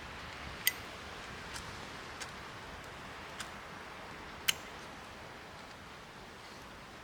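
Wood fire crackling: a steady soft hiss broken by about five sharp pops at uneven intervals, the loudest near the start and just past the middle.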